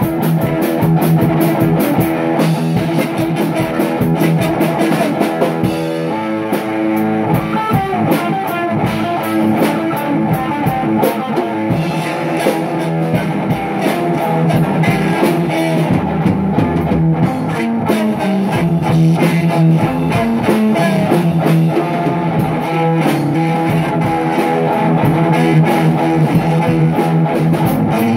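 Rock music: guitar over a drum kit, with sustained notes and a steady beat.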